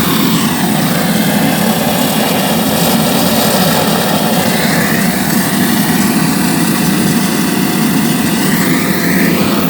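Oil-fired home-built aluminium melting furnace running, a steady loud roar of the burning oil and the air blast through the tuyere.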